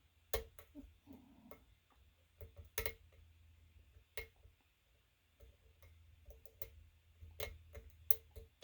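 Lock pick working the pins of a Lockwood pin-tumbler lock: irregular light metallic clicks and ticks, a few slightly louder than the rest.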